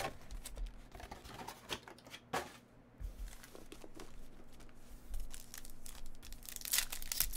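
Foil trading-card pack wrappers crinkling and rustling as a stack of packs is handled and squared up, with a louder ripping crackle near the end as a foil pack is torn open.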